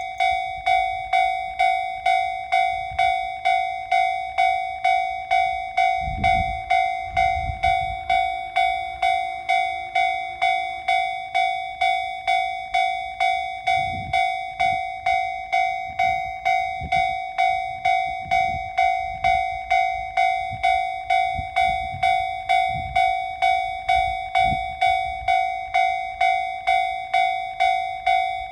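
Japanese railway level crossing warning bell ringing over and over at an even pace, about three dings every two seconds. It is the signal that a train is approaching. Low rumbles come and go underneath.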